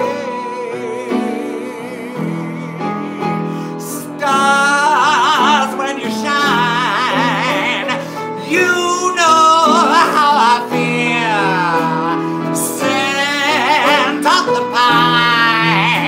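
Live music from acoustic guitar and upright piano. About four seconds in, a loud voice joins them, singing with a wide, swooping vibrato.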